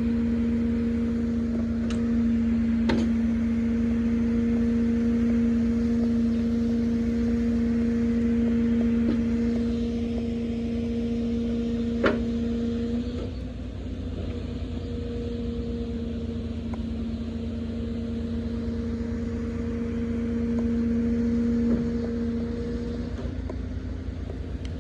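Truck-mounted loader crane working: the truck's diesel engine and hydraulic pump run with a steady whining hum that drops slightly in pitch and level about halfway through, with a few sharp metallic knocks from the fork and pallet.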